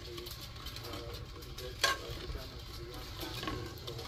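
A spoon stirring dandelion syrup (vegan dandelion honey) in a metal saucepan, with one sharp clink of the spoon against the pot about two seconds in.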